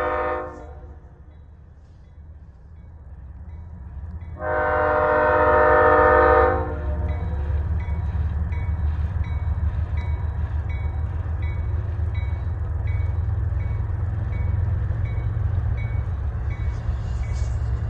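CSX GE ES40DC diesel locomotive at the head of a freight train sounding its air horn: a blast trailing off in the first half-second, then a longer, louder blast of about two seconds from about four and a half seconds in. Under and after the horn, the low rumble of the approaching train grows steadily louder.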